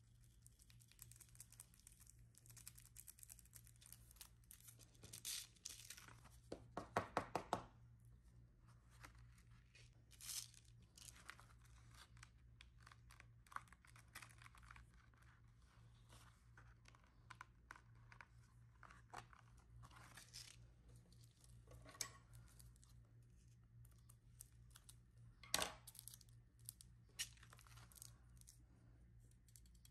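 Paper backing being peeled and crinkled during a sand-art craft, with intermittent rustling and a quick run of about eight light taps around seven seconds in.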